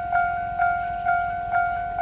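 Japanese railroad crossing warning bell clanging in a steady rhythm, about two strikes a second, each strike a ringing tone that fades before the next.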